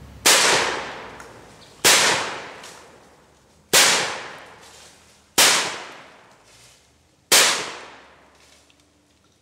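Benelli Super 90 12-gauge semi-automatic shotgun fired five times, about every two seconds, each shot followed by a long fading echo.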